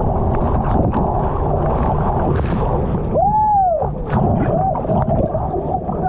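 Churning whitewater and spray splashing over a GoPro at the surface, with wind rushing on the microphone. About three seconds in, a surfer's voice gives a long rise-and-fall exclamation, followed by shorter ones.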